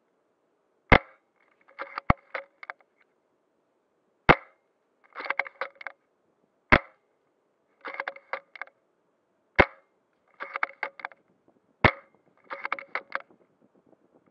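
Airsoft rifle firing six single sharp shots, about every two to three seconds, the last one right at the end. About a second after each shot comes a short run of smaller mechanical clicks.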